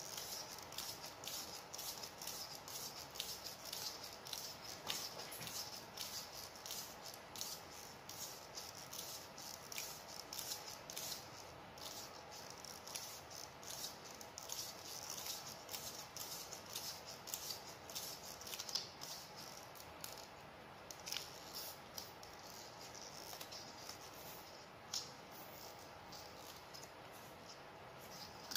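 Faint, rapid crackling and rustling of PTFE (Teflon) thread-seal tape being pulled off the roll and wound onto the threads of plastic pipe fittings, with light clicks of the fittings being handled.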